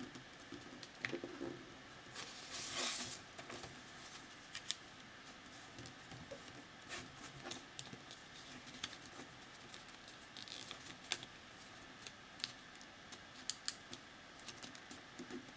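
Plain sheet of paper being folded and creased by hand: faint rustling and crinkling with scattered small clicks, and a louder rustle about two to three seconds in.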